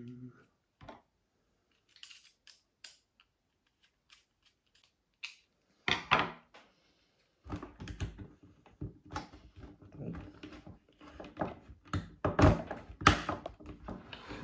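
Small plastic clicks and taps from handling a GoPro camera case and mic adapter. About six seconds in comes a louder cluster of knocks, followed by busier rubbing, clicking and knocking as the parts are worked against a motorcycle helmet.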